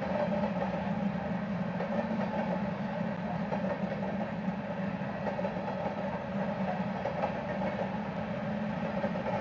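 Freight train of loaded covered hopper cars rolling steadily past: a continuous, even noise of wheels on rail with no breaks or sharp clanks.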